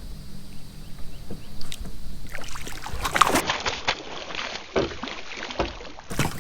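Water splashing and knocking, from about two seconds in, as a hooked bass is brought to the boat, over a low steady hum.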